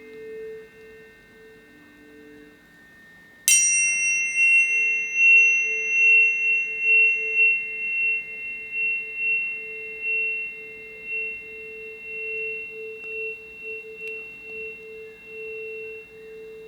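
Planetary tuning forks ringing. A fork is struck about three and a half seconds in with a bright metallic attack. Its pure tone then rings on above a lower fork's tone, both pulsing in loudness as they slowly fade.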